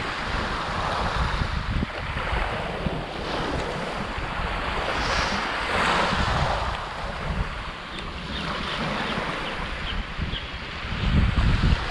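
Small waves washing in and drawing back over a pebble beach, with a wash swelling about six seconds in, and wind buffeting the microphone as a low rumble.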